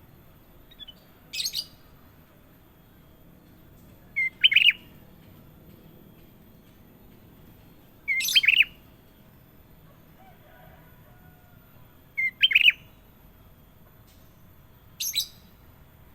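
Kutilang emas bulbul calling in short, clear phrases, five in all, spaced about every three to four seconds. Some phrases are quick high chirps; others start with a short lead-in note and drop into a fuller double whistle. A faint steady hiss and a low hum run underneath.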